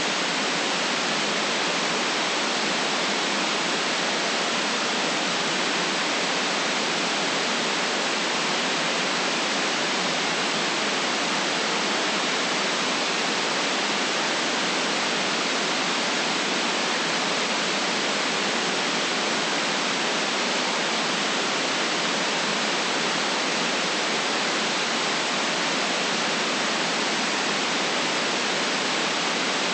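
Steady white noise: an even, unchanging hiss with no deep bass and no highest treble.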